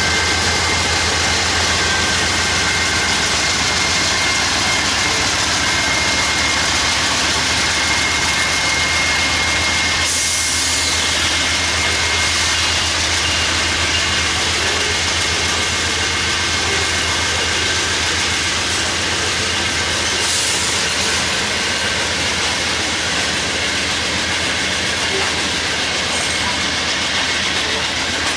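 Diesel locomotive engine running steadily close by: a low, even throb under a constant rush of noise.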